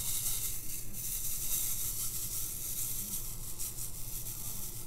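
Many tiny diamond-painting drills, square crystals mixed with round drills, rattling and sliding across a plastic tray as it is tilted and shaken. The sound is a continuous fine, hissy patter of small pieces.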